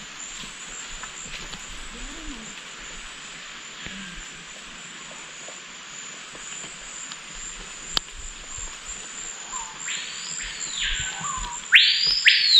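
Rainforest ambience with a steady high insect drone, then two loud calls from an animal high in the canopy near the end, each sweeping up, holding and dropping back. The second is the louder.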